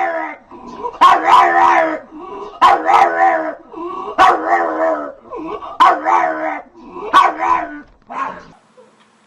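A dog giving a run of drawn-out, pitched, howl-like barks, about one every second and a half, that stop shortly before the end.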